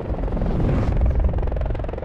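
Whir of a small helicopter's spinning rotors, an animation sound effect, with a low whoosh that swells to its loudest about a second in and then eases off.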